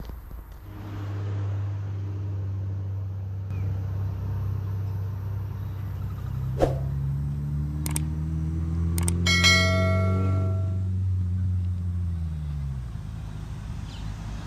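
Click sound effects and a bell chime from a subscribe-button animation, a little past the middle. Under them runs a low steady hum that rises in pitch and fades out near the end.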